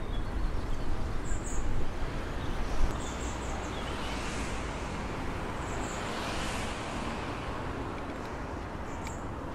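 Outdoor ambience: low wind rumble on the microphone, a few short bird chirps, and two swells of passing traffic noise, about four and six and a half seconds in. A few louder bumps come in the first three seconds.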